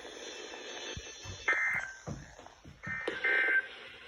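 NOAA Weather Radio SAME digital header for the Required Weekly Test: short, buzzy bursts of two-tone data over the radio, one about a second and a half in and another at about three seconds. Faint clicks and receiver hiss lie between them.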